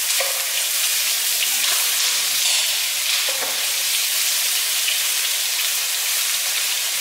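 Food frying in hot oil in a frying pan, a steady sizzle, stirred with a plastic spatula that scrapes the pan a few times.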